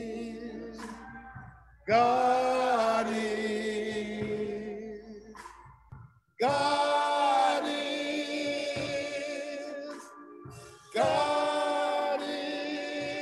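Slow hymn sung by a small group of voices: three long phrases of held notes with vibrato, each starting about two, six and a half, and eleven seconds in.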